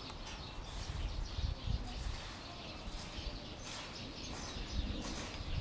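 Outdoor ambience: scattered short bird chirps over a low rumble on the microphone, which swells twice.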